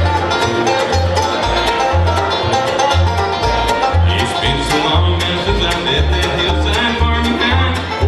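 A live bluegrass band playing, with acoustic guitar and other plucked strings over a bass line of about two notes a second. A high note is held through the second half.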